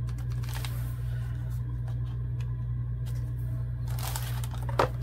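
Paper being handled, with light rustling and soft taps as a junk-journal pocket is pressed down, and a livelier burst of rustling and clicks about four seconds in as a plastic box of paper scraps is moved. A steady low hum runs underneath.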